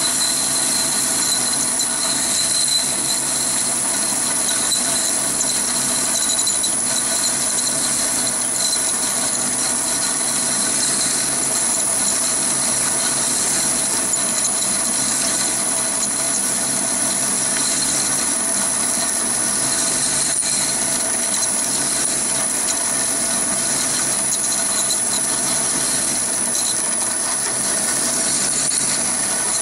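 Chinese mini lathe running steadily while a large-diameter HSS twist drill cuts into a spinning workpiece, with a steady high whine over the machine noise.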